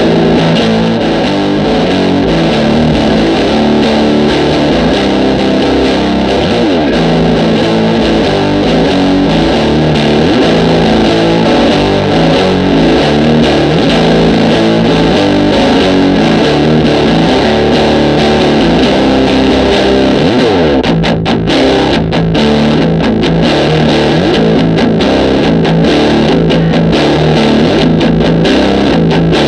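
Heavily distorted electric guitar playing heavy riffs through an Acorn Amps Solid State Preamplifier pedal, with a couple of sliding notes and brief stops about two thirds through.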